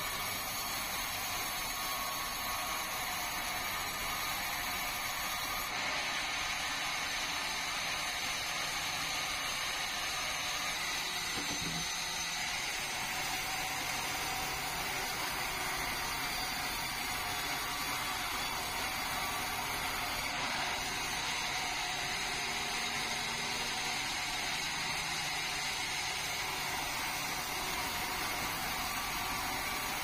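Sawmill vertical band saw running and sawing meranti timber, a steady mechanical noise with no letup.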